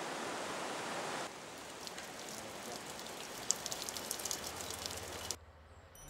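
Steady rushing of a shallow rocky stream, a little quieter after about a second, with a few faint clicks later on; it cuts off shortly before the end.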